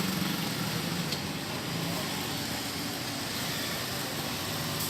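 An engine running steadily, its low rumble easing off over the first couple of seconds.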